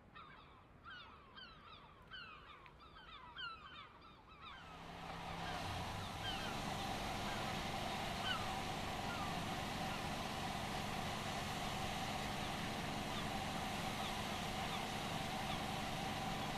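Birds give short falling calls over a quiet background. About four and a half seconds in, a steady engine hum with a constant low drone rises and then holds, while a few bird calls carry on above it.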